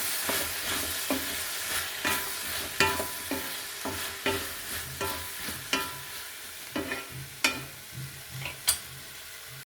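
Okra sizzling as it stir-fries in an iron kadai, with a spatula scraping and knocking against the pan as it is mixed. There are a couple of knocks each second, and the sizzle slowly grows quieter.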